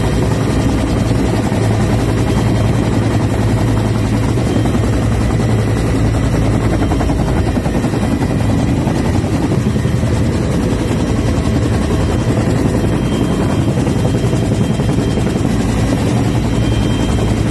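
Military helicopter's engine and rotor running on the ground, heard from inside the cabin with its door open: a loud, steady drone with a strong low hum.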